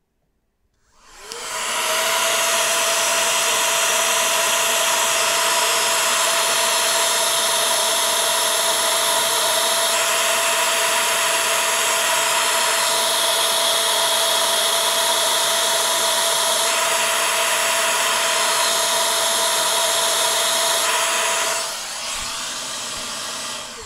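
CPAP blower fan with a 3D-printed velocity stack on its air intake. It spins up about a second in, then runs at full speed with a steady whine over loud rushing air, and drops to a quieter level near the end. The owner thinks the velocity stack makes the intake noise louder and less pleasant rather than quieter.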